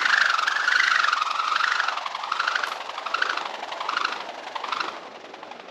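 A broken jokari ball whirled round and round on its cord, making a whirring swish that rises and falls once with each turn, about every 0.8 seconds, then dies away near the end. It is a foley prop used to imitate a boat's propellers.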